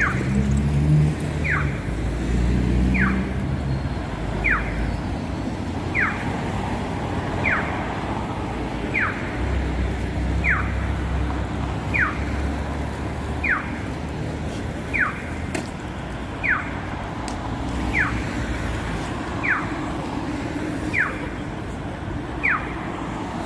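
An electronic chirp, a quick falling tone, repeating steadily about every one and a half seconds, over the low rumble of passing road traffic.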